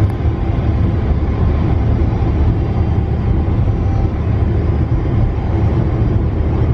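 Tram running, a steady low rumble.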